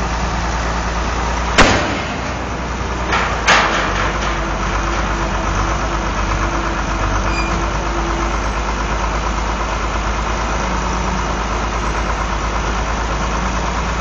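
Heavy construction-machinery engine running steadily at idle, with a low rumble. Sharp knocks sound twice, about a second and a half in and again about three and a half seconds in, the second a short double.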